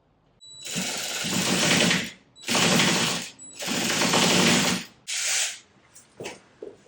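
Handheld power tool running in three long bursts of one to two seconds each, then one short burst, as hardware is driven in during the skid plate install.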